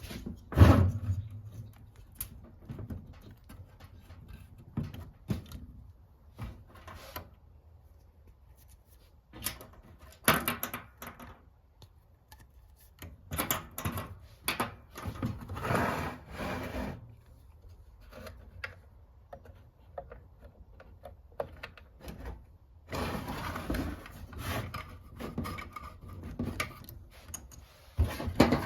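Hands fitting clear plastic tubing onto fittings and pressing black plastic retainer clips into place: scattered clicks, rubs and knocks in short clusters, with quiet stretches in between.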